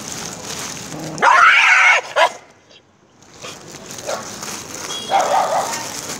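A dog gives one loud call, rising in pitch at its start, about a second in, then a short second one. A quieter one follows about five seconds in.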